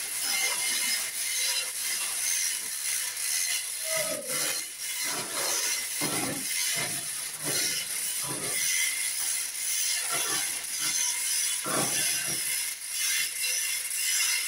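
Manual chain hoists ratcheting as the hand chain is pulled, with irregular clanks and rattles of the chain.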